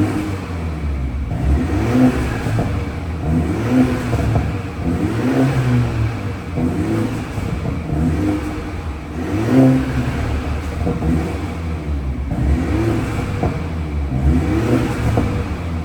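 BMW 430i F36's 2.0-litre turbocharged four-cylinder being revved in repeated short blips, about one every second and a half, each rising and falling in pitch. It sounds through the exhaust with its flap valve held permanently open by pulling its fuse.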